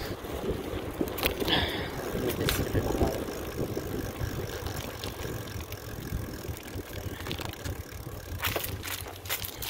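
Mountain bike being ridden on a trail: continuous tyre noise with scattered clicks and rattles from the bike, and a low rumble of wind on the microphone.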